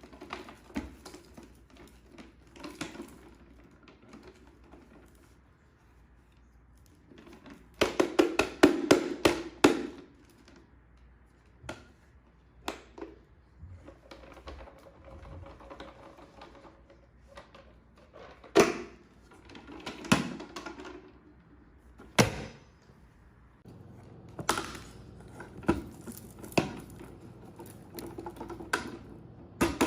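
Crunchy debris being sucked up from carpet by a vacuum: irregular clicks and crackles of bits rattling into the nozzle. A dense, loud run of rapid clicks comes about eight seconds in, and sharp single knocks come now and then after it.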